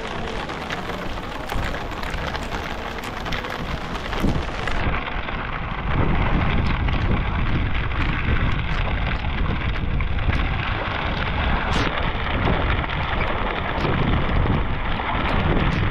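Heavy rain falling on open sea water and pattering on a surfski's deck, mixed with the splash of paddle strokes. A low rumble grows about six seconds in.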